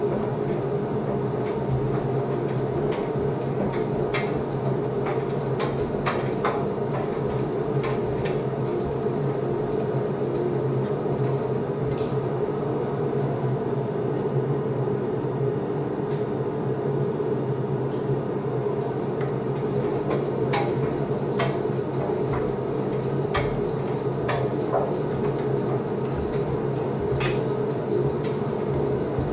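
Beko WDC7523002W washer-dryer tumble-drying: a steady hum from the drum motor and drying fan as the drum turns, with scattered sharp clicks as the load tumbles.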